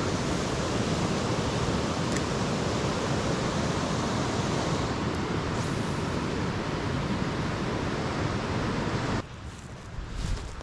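Steady rushing of creek water, an even noise with no rhythm, which cuts off suddenly about nine seconds in.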